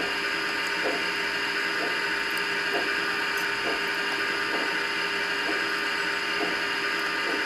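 Large-scale garden-railway model train running past: the geared electric motors of the model locomotives give a steady whine of several pitches, with a faint click about once a second from the wheels on the track.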